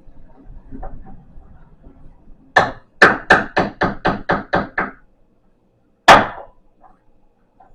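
Hammer blows on a treadmill part during disassembly: one strike, then a quick run of about eight at roughly four a second, then a last single blow, the loudest, a second later. The hammering is meant to free a tight, stuck fastener.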